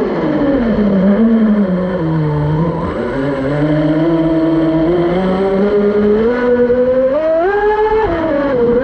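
Twin GoolRC 2968 brushless motors of a Minicat 820 EP RC catamaran running under changing throttle: the electric whine drops in pitch over the first two seconds, holds low through the middle, climbs about three-quarters of the way through and falls again at the end, over a rushing noise.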